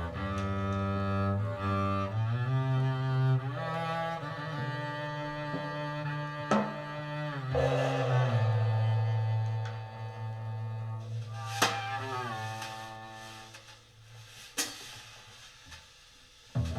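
Bowed double bass playing a slow melody in long held notes, with a few sharp percussive strikes, and growing quieter near the end.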